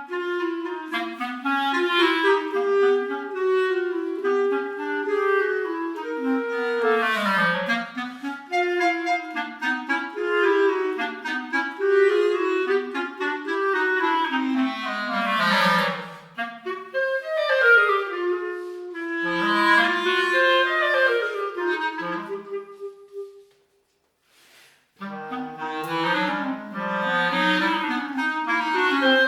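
Clarinet music: a moving melodic line over a lower part. It breaks off briefly about 23 seconds in and starts again about a second and a half later.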